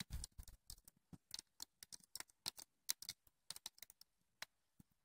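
Faint crackling of a wood campfire: many short, irregular snaps and pops of burning wood.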